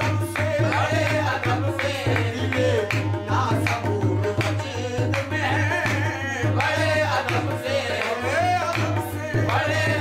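Qawwali: a lead male voice singing a melismatic line over harmonium, with tabla drumming and accompanying voices from the group.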